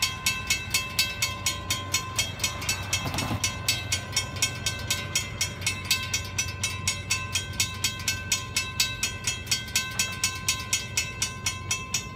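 Railroad grade-crossing warning bell ringing steadily, about three strokes a second, as the crossing's flashing lights and lowering gates warn of an approaching train.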